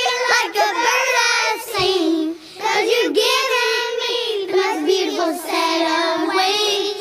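A song plays: a high voice sings a slow melody, with held notes that waver in pitch.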